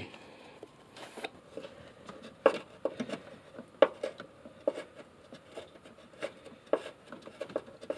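Scattered light clicks and taps of a hand tool and fingers against metal, with faint rubbing, as a nut is worked onto the clutch master cylinder's mounting stud at the firewall.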